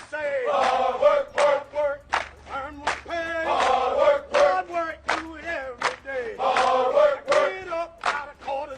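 Background music with chanted group vocals over sharp percussive hits, the same vocal phrase repeating about every three seconds.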